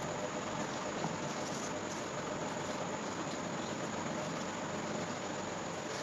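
Steady, even background hiss with no clear eating or mouth sounds standing out.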